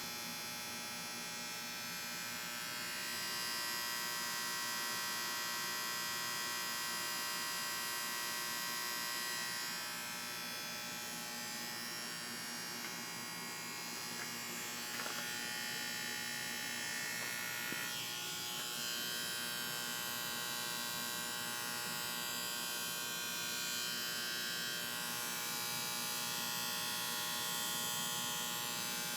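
AC condenser unit buzzing steadily, a continuous electrical hum made of many evenly spaced tones: the sound of a bad start capacitor.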